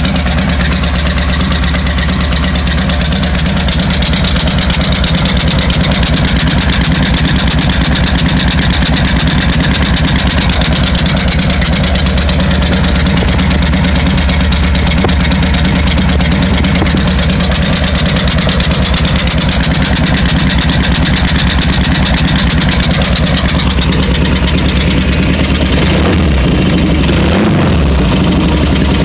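Royal Enfield twin-cylinder motorcycle engine idling steadily through its exhaust, with an odd note from the right-hand pipe that the owner suspects comes from a burnt or bent valve. The engine note dips and recovers briefly near the end.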